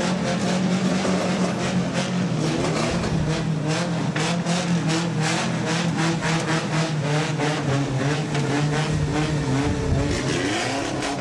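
Engine of a safari rally race vehicle running at a steady speed, its note changing about nine seconds in.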